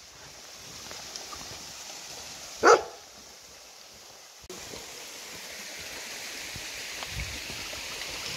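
A dog barks once, sharply, about a third of the way in, over the steady rush of a small waterfall and stream; the water noise gets suddenly louder a little past halfway.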